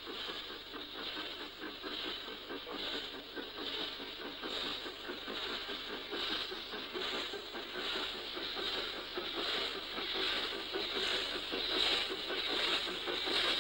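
Belgian SNCB type 29 steam locomotive pulling away with a train, its exhaust beating evenly about one and a half times a second over a steady hiss.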